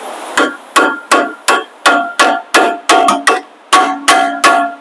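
Hammer striking a stuck rear brake rotor on a heavy-duty pickup: about a dozen sharp metal-on-metal blows, roughly three a second, each ringing briefly, to knock the seized rotor loose from the hub.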